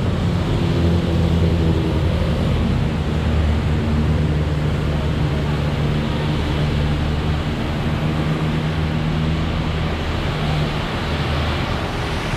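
Heavy rain falling, a dense steady hiss, with a low steady hum underneath that fades a little near the end.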